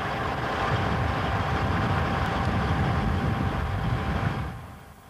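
Engine of a loading machine running steadily, a low rumble with a faint steady whine; it fades away about four and a half seconds in.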